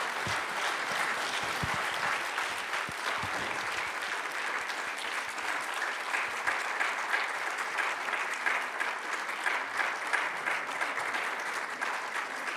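Audience applauding steadily at the close of a talk, with a few low knocks in the first three seconds.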